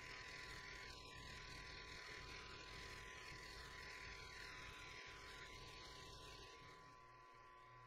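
Milling machine spindle running with a 12 mm end mill in an R8 collet: a faint steady whir with a thin high whine. It eases off a little near the end, where a low hum comes in.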